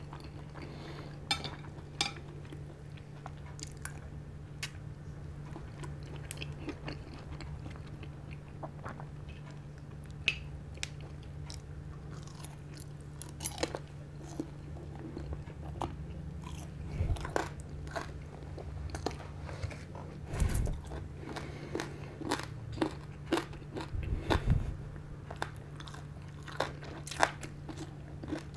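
A person chewing food close to the microphone, with irregular wet mouth clicks and smacks, over a steady low hum; a few heavier, dull low thumps come in the second half.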